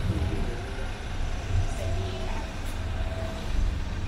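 Street ambience: a steady low rumble of road traffic passing on a city street.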